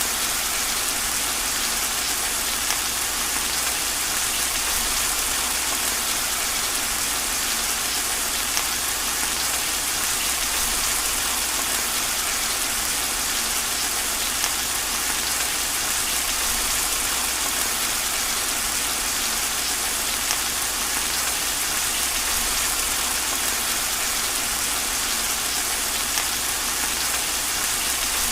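Steady heavy rain falling hard, a dense even hiss with scattered sharper drop ticks.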